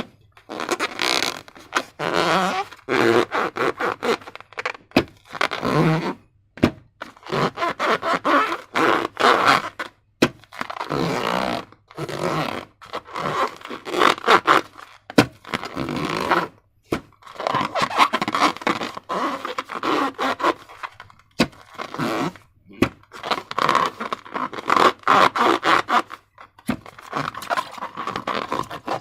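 Slime being worked by hand, with sticky squelching, crackling and scraping that come in bursts of a second or two with short pauses between them.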